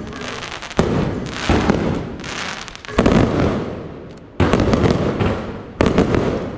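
Fireworks going off: five loud bursts in quick succession, each a sharp bang followed by crackling that fades away.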